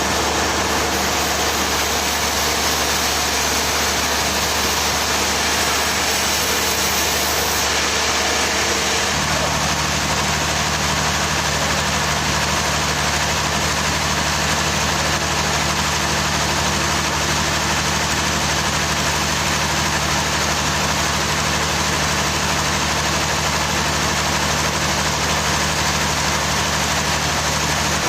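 Heavy machinery engine running steadily. Its tone changes slightly about nine seconds in.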